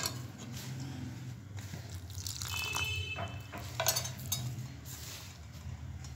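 Hand mixing and kneading coarse maize (corn) flour with warm water in a plastic bowl: soft crumbly rustling and squishing, with sharp knocks right at the start and again about four seconds in, over a steady low hum.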